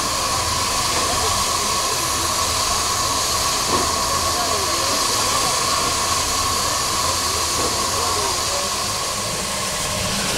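Steam locomotive letting off a steady hiss of steam, with an even tone running through it.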